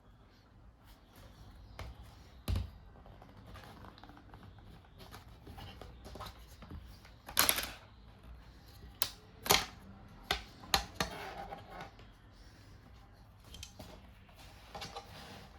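Irregular plastic clicks and taps from hands working on a laptop's case, with a few louder knocks.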